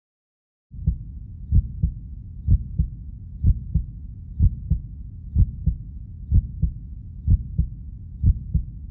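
Heartbeat sound effect, starting just under a second in: a steady double thump about once a second over a low rumble.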